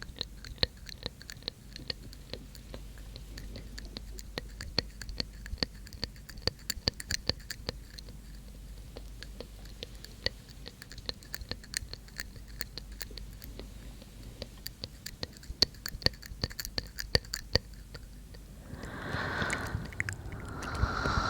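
Close-miked ASMR mouth sounds: a steady run of wet tongue and lip clicks ('tk tk'), irregular and several a second. Near the end, breathy unintelligible whispering comes in over them.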